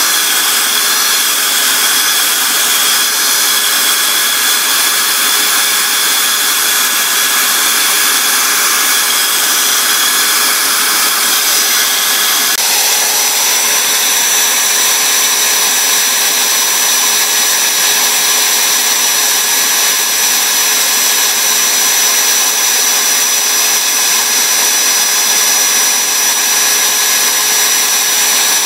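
Electric drill running steadily at speed, spinning a cork fishing-float body while fine sandpaper is held against it to sand it smooth. A continuous high whine; the tone shifts slightly about halfway through.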